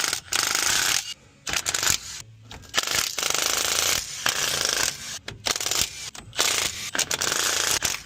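Impact wrench hammering in repeated bursts of about half a second to a second each, with short pauses between, as bolts are run on the axle job.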